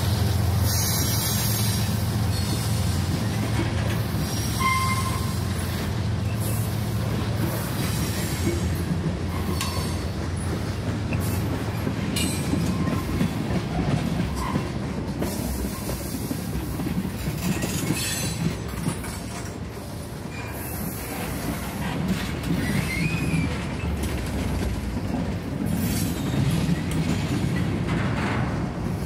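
Train rolling on the track: a steady low engine drone with rail noise and brief squeals from the wheels.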